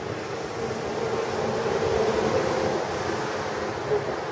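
Thunderstorm noise outdoors: a steady rush of wind and rain that swells about a second in, peaks, eases off, and has a brief bump near the end.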